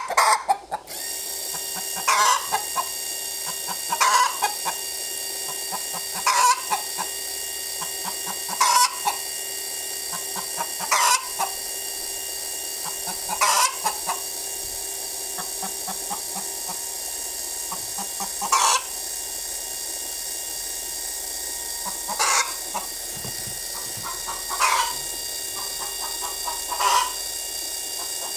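Hen calling loudly in short repeated outbursts, about one every two seconds, over a steady background hum.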